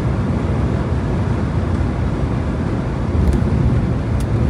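A car driving on the highway: a steady rumble of engine and tyre noise.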